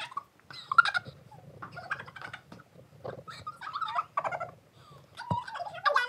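Several girls laughing and giggling in a string of short bursts.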